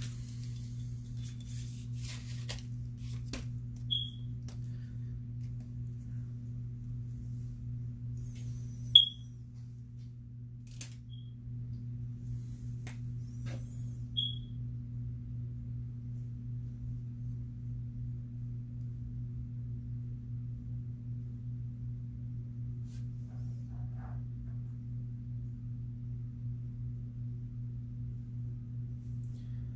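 A steady low electrical hum, with four short high-pitched chirps in the first half, the loudest about nine seconds in, and a few faint clicks.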